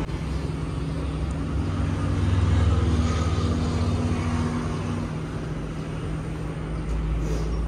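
Steady low rumble of motor-vehicle traffic, swelling louder about two to three seconds in and then easing off.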